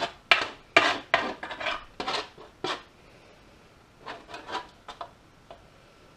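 A metal utensil scraping and knocking cooked onions off a metal roasting tray, about a dozen short, sharp strokes: quick for the first three seconds, a few more about four to five seconds in, then it stops.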